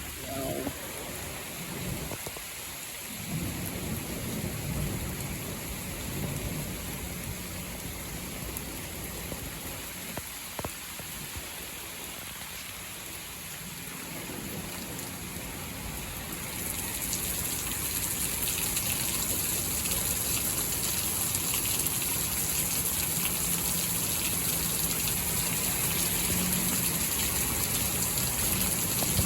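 Rain falling steadily with thunder rumbling low in the first several seconds. The rain grows louder a little past the middle and stays heavy.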